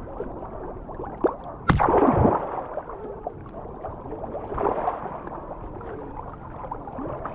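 Water splashing and sloshing, with one loud splash about two seconds in and a smaller one near the middle.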